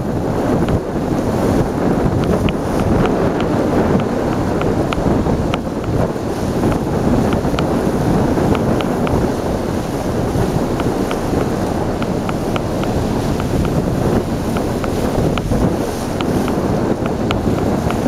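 Wind buffeting the microphone aboard a boat on the river, a steady loud rush with a low rumble underneath and many small clicks.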